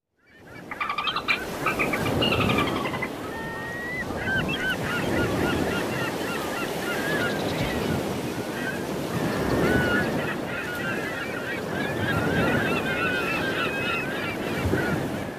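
Ocean sound-effects track: water washing in slow swells under many short, squeaky calls that glide up and down in pitch.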